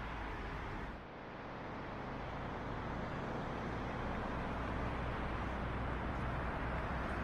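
Steady city road traffic noise with a low rumble. It drops briefly about a second in, then slowly grows louder.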